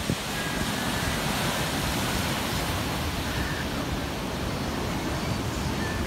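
Ocean surf breaking and washing: a steady, even rush of white water, with a brief knock just after the start.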